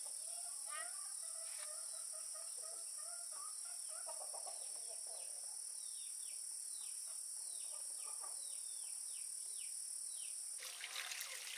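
Insects droning steadily at a high pitch, with bird calls over them: warbling notes in the first half, then a run of quick falling chirps at about two a second. A brief rushing noise comes in near the end.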